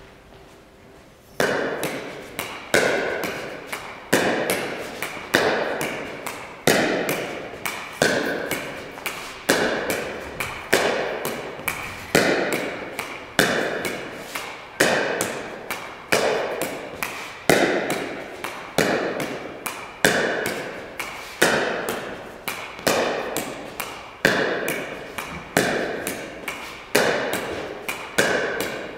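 Pickleball rally against a wall with a Six Zero paddle: the plastic ball knocks off the paddle and then off the wall in a steady rhythm of about three strokes every four seconds, each followed by a smaller knock. Each knock rings on in the large gym's echo. The rally starts about a second and a half in.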